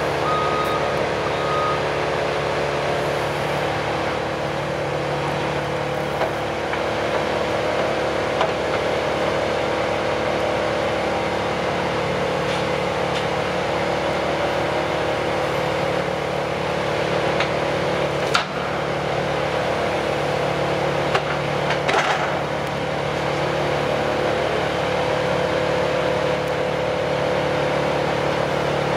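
Heavy diesel machinery running steadily: a Cat compact track loader driving a brush chipper, with a Cat excavator working alongside, makes a constant engine drone. A few sharp cracks stand out about two-thirds of the way through.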